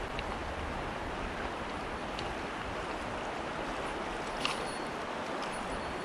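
Steady rushing of a fast mountain stream running high with snowmelt, with a few light clicks on top, the sharpest about four and a half seconds in.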